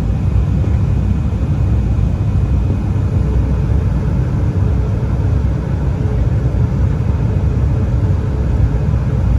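Steady low rumble of airliner cabin noise inside an Embraer E175 regional jet in flight: airflow and the drone of its GE CF34 turbofans, with a faint steady hum above it.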